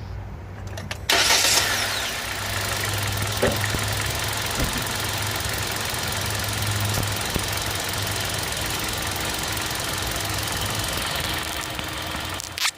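Car engine running with the knocking the owner is showing as a fault. It jumps suddenly louder about a second in, holds steady, and drops away near the end.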